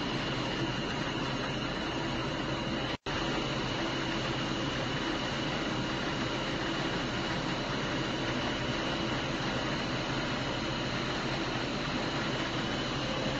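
Steady hiss with a low hum and a few faint high steady tones, broken by a split-second dropout about three seconds in.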